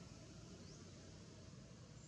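Near silence: faint steady outdoor background hiss.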